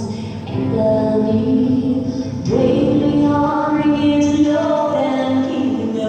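Music with singing voices holding long notes; a new sung phrase comes in about two and a half seconds in.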